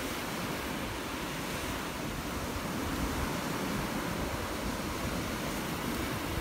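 Steady wash of sea surf on the beach, with some wind on the microphone.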